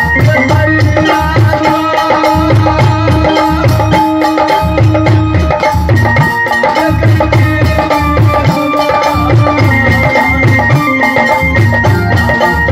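Instrumental folk music: hand drums beat a repeating rhythm under held melody notes.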